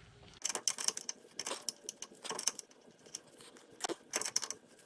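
Metal hand tools clinking: a 7/16 brake line (flare-nut) wrench being handled against metal, giving a quick, irregular run of sharp clicks and taps.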